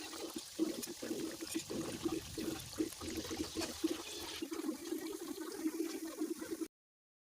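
Steady, uneven rush of running or pouring water that stops abruptly about six and a half seconds in.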